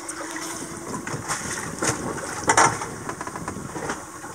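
Sea water splashing and sloshing against a sailboat's hull and swim ladder, with irregular splashes and a louder splash about two and a half seconds in. A faint steady hum runs underneath.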